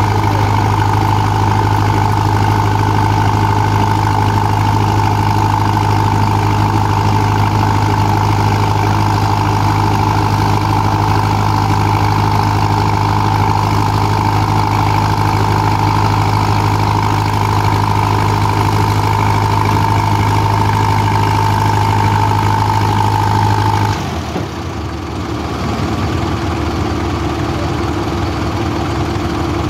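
Engines of a crawler bulldozer and the pulling trucks running steadily under load as the stuck dozer is winched out of a mudhole. About 24 seconds in, the steady drone cuts off suddenly, and after a brief dip the engine note settles at a different pitch.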